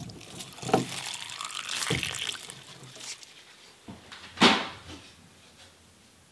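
Water running briefly from the tap of a plastic water canister, with a few knocks as the tap is handled. About four and a half seconds in comes a single loud wooden knock as a wooden window shutter is pushed open.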